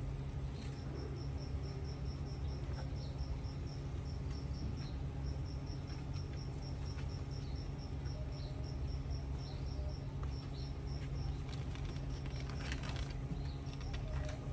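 A cricket chirping steadily, a train of short high-pitched pulses about five a second, over a steady low hum. A brief scratchy rustle comes about twelve and a half seconds in.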